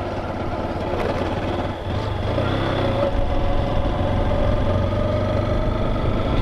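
Motorcycle engine running steadily at low riding speed.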